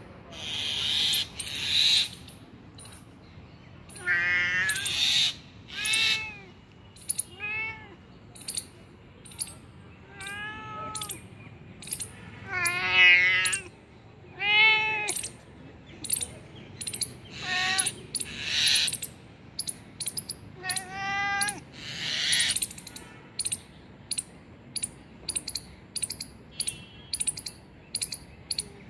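Ginger domestic cat meowing repeatedly, short calls that rise and fall in pitch. Between the meows come short breathy hissing noises and sharp clicks, the clicks coming quickly near the end.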